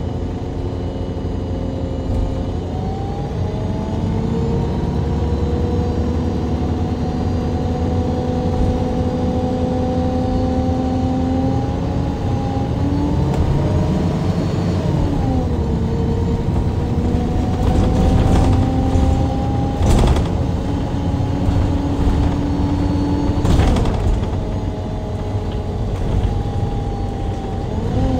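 Rear engine and Voith automatic gearbox of a 2012 MAN Lion's City G NG313 CNG articulated bus, heard from inside right above the engine, pulling under load. Several whining tones climb slowly, fall about halfway through, then climb again, with a few knocks and rattles late in the second climb.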